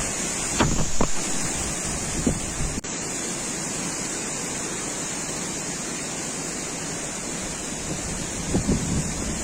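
Strong wind rushing and buffeting the microphone in a steady roar, with heavier gusts near the start and again near the end.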